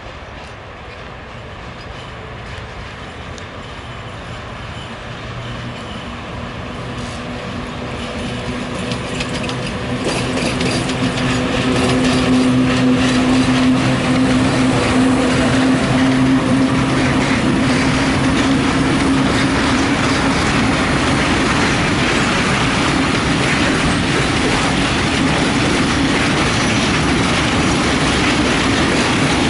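A PKP class ET22 electric freight locomotive and its train of loaded open wagons approach and pass at close range. A steady low hum grows louder over the first dozen seconds, then stays loud as the rumble and clatter of the wagons' wheels on the rails take over.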